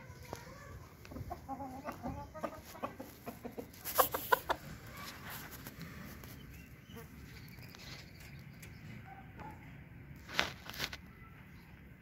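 Aseel roosters clucking in short, low calls, with a quick cluster of sharp knocks about four seconds in and two more near the end.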